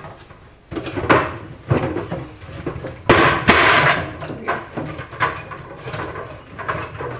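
Hollow plastic knocking and clattering as the sections of a Tower Garden aeroponic tower are tapped and worked into place by hand: a string of sharp knocks, the loudest a little after halfway.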